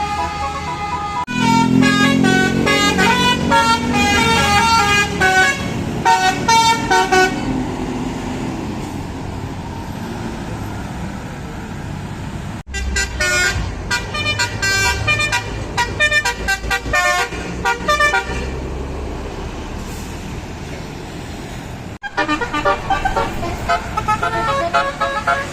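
Bus telolet horns, Basuri multi-note air horns, playing quick melodic tunes of rapidly stepping notes in three bursts, over a bus engine running. The sound breaks off abruptly at cuts about a second in, about halfway through and near the end.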